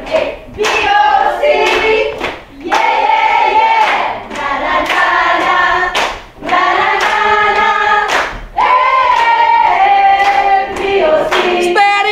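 A group of people singing together in phrases, with hand claps between the lines. Near the end a voice glides sharply down in pitch.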